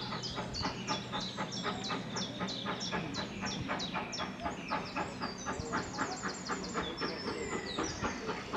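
Steam locomotive No. 9351 working a train under steam, its exhaust beating in a steady rhythm of about four chuffs a second.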